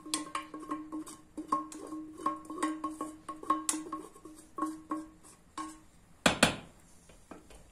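Wooden spoon tapping and scraping inside a small metal pan, emptying spiced melted butter into a soup pot; each tap sets the pan ringing with the same tone. One loud knock a little over six seconds in.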